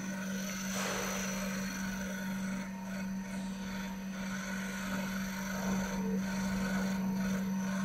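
Water-cooled spindle of a desktop 5-axis CNC milling machine running with a steady hum while its cutter mills a block of pink foam.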